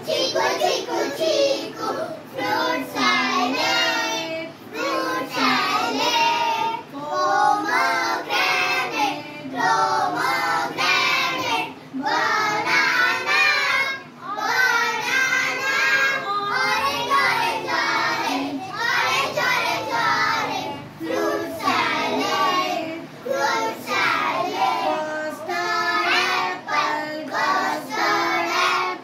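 A group of young girls singing a children's fruit rhyme about watermelon together, in short phrases with brief breaks between lines.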